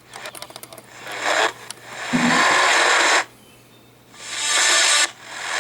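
Radio receiver giving bursts of static hiss as it is tuned off-station: a short weak burst about a second in, a loud one of just over a second, and a third near the end.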